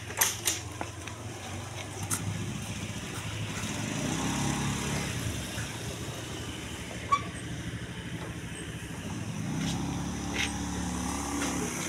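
A motor vehicle engine running steadily, growing louder about four seconds in and again near the end, with a few sharp clicks in the first couple of seconds.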